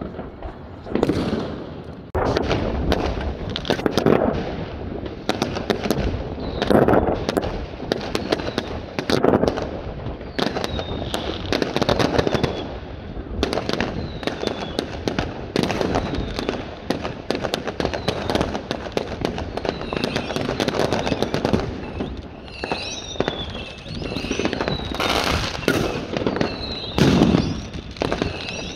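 Fireworks going off in a dense, continuous run of bangs and crackling. From about ten seconds in, short falling whistles join the bangs.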